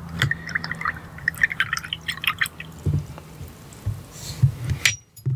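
Watercolour brush swished in a jar of rinse water, a run of small drips and splashes, then blotted on a paper towel with a short rustle about four seconds in.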